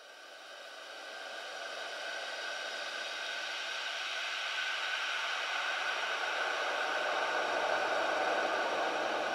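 A steady electronic hiss with faint steady tones running through it, swelling slowly louder over the first few seconds and then holding: a noise drone in the film's score.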